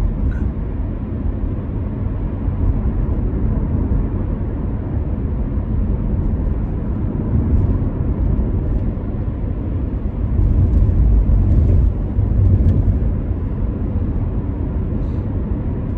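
Steady low rumble of a 2019 Corvette Z06 on the move, heard from inside the cabin: its supercharged 6.2-litre V8 mixed with road and tyre noise. It swells louder for a couple of seconds around ten seconds in.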